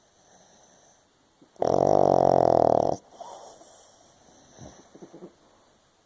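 Pug snoring: one loud, drawn-out snore starting about a second and a half in and lasting about a second and a half, followed by softer, uneven breathing sounds.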